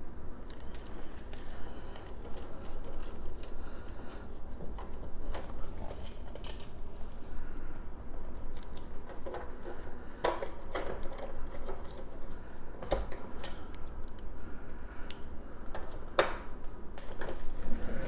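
Light metallic clicks and rattles as the 3D printer's slotted sheet-metal electronics cover and its small screws are handled and fastened back in place with a screwdriver. A few sharper clicks come in the second half.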